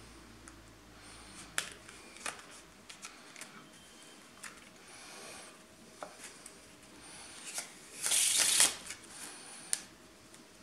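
A deck of playing cards being handled: scattered soft clicks and rustles as the two packets are squared together, then a louder shuffle of the cards lasting under a second about eight seconds in.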